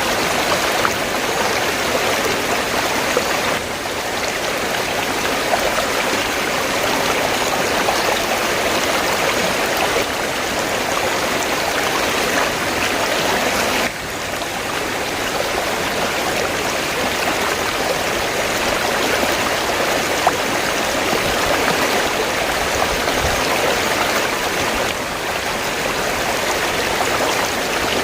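River water flowing steadily, a continuous rushing of running water with slight brief dips in level roughly every ten seconds.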